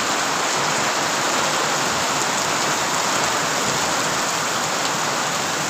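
Steady downpour of rain falling onto puddled, waterlogged dirt ground.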